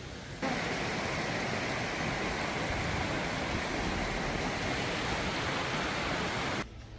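Steady rush of muddy floodwater running over gravel and debris, starting suddenly about half a second in and cutting off suddenly near the end.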